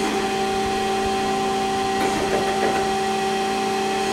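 Chevalier FSG-1020AD surface grinder running in automatic cycle: a steady hum from the wheel spindle and hydraulics with an even hiss from the wheel dry grinding steel.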